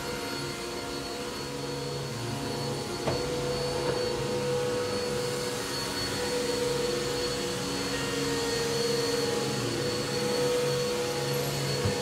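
Corded upright vacuum cleaner running steadily, a motor whine over a steady rush of air. Two light knocks come about three and four seconds in.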